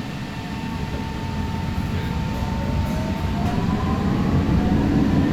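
Alstom Citadis Spirit light-rail train pulling away from a station, heard from inside the car: its traction motors give a whine of several tones rising in pitch as it accelerates, over a rolling rumble that grows steadily louder.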